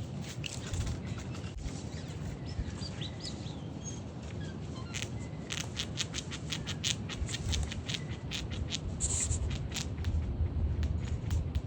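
Outdoor ambience over a steady low rumble, with a few faint bird chirps and, about halfway through, a quick run of sharp clicks lasting several seconds.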